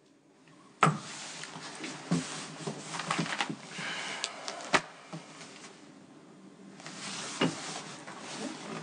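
Quiet indoor handling sounds: a sharp knock about a second in, then scattered clicks and the rustle of papers being handled.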